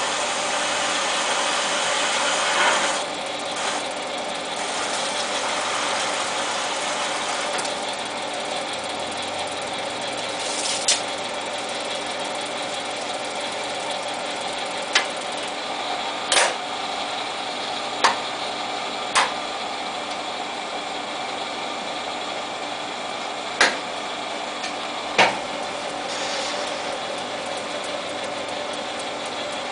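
Jet TL-25 turret lathe running with a steady mechanical hum, a little louder for the first three seconds, with about eight sharp metallic clicks spaced a few seconds apart as the machine is worked.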